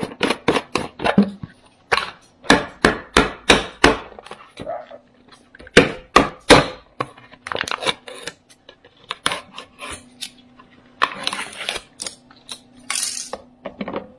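Package of Arm & Hammer Nubbies dental dog treats being handled and opened. There is a rapid run of sharp knocks and clatters from the hard treats and packaging, a burst of rustling near the end, and a faint steady hum underneath.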